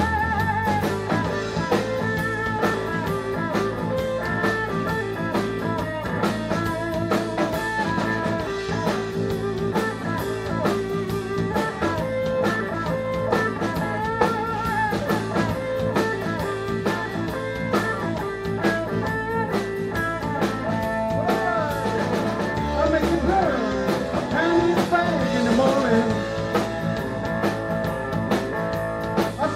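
Live blues band playing an instrumental stretch: electric guitar leading over drums and keyboard, with the guitar bending notes in the last several seconds.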